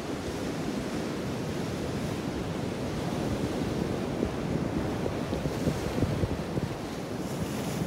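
Ocean surf washing and breaking against a rock shelf, a steady rush, with wind buffeting the microphone.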